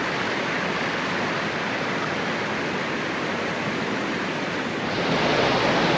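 A small waterfall pouring over boulders into a deep creek pool, with the creek water rushing: a steady wash of noise that grows a little louder about five seconds in.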